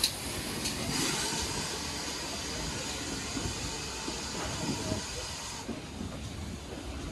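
Steam hissing steadily from a GWR 6400 class 0-6-0 pannier tank locomotive, cutting off fairly sharply about five and a half seconds in.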